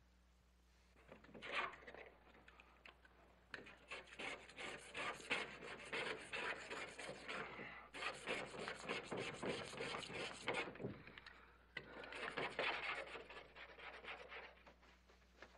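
Dark paint being scraped off the glass of a painted-over mirror with a small hand tool: quick, rasping scraping strokes in long runs, breaking off briefly about eleven seconds in before starting again.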